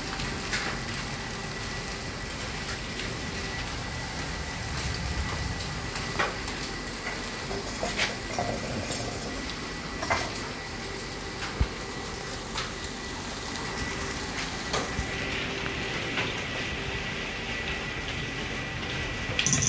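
Scattered light knocks and clatters of tubular metal chairs and cardboard boxes being moved about, over a steady background hiss.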